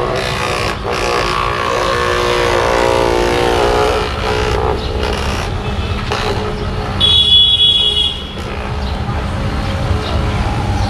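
Corded electric vibrating massager buzzing against an arm, over busy street traffic with vehicle horns: a long horn tone in the first few seconds and a shrill, higher horn about seven seconds in.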